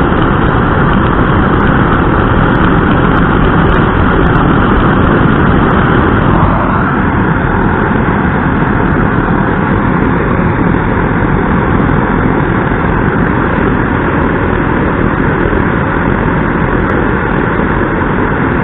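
Burmos paraffin blowlamp running on diesel fuel, its pressurised burner making a loud, steady rushing flame noise. The tone shifts slightly about six and a half seconds in.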